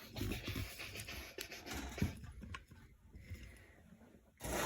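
Hands handling computer hardware: scattered light clicks and soft knocks, with a brief louder rustle near the end.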